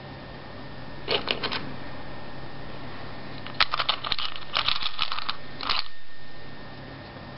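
Four short bursts of rapid clicking and rustling over a steady low hum, the burst near the middle the longest.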